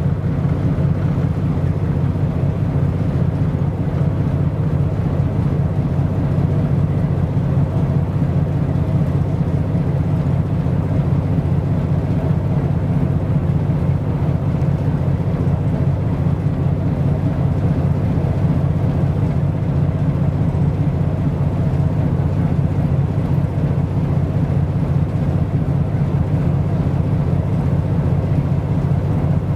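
Steady low drone of a ship's engine, unchanging throughout.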